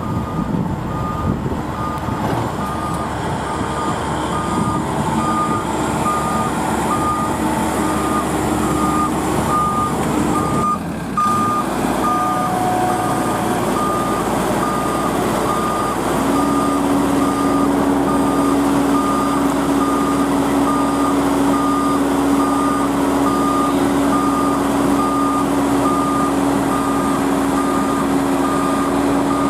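Reversing alarm on a rice harvester beeping steadily, about two short beeps a second at one pitch, over a running diesel engine. A steady engine hum joins about halfway through.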